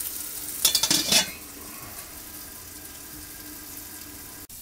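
Fat dripping onto hot charcoal and sizzling under grilling chicken, while a metal dome grill lid clatters into place just under a second in. After the lid goes on, the sizzle continues more quietly.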